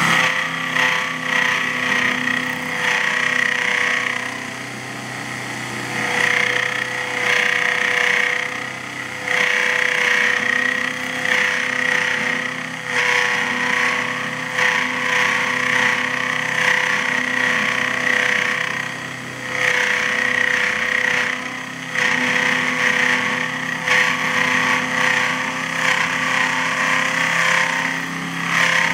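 Home-built mini milling machine driven by an Emco Unimat SL universal brushed motor on its slowest belt speed, an end mill cutting a slot in a thin metal plate. The motor runs with a steady hum under a cutting noise that drops off and comes back several times as the table is fed back and forth. There is a little chatter, which the owner puts down to table adjusting screws that need tightening.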